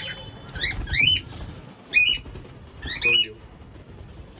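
A bird calling again and again: short, sharp calls that rise and then drop, about one a second.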